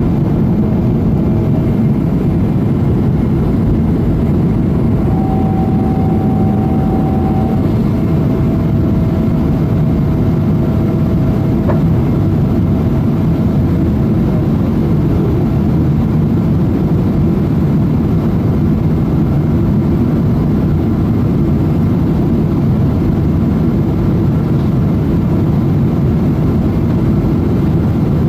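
Steady, loud cabin noise inside a Boeing 777-200 in flight: a dense low rumble of engines and airflow, with a faint steady whine in the first half.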